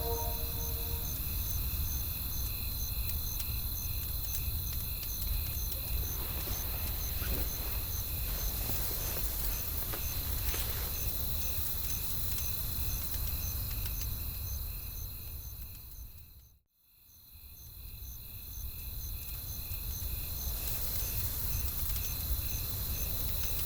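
Night-time ambience of crickets chirping steadily, about two chirps a second, over a low steady rumble and a soft hiss. The whole bed fades out to silence about two-thirds of the way through and then fades back in.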